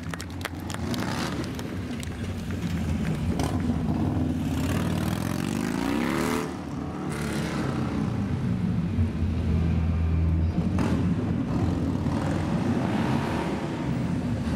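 Motorcycle engine running and revving during stunt riding. The revs rise and fall, with a clear rising rev about six seconds in.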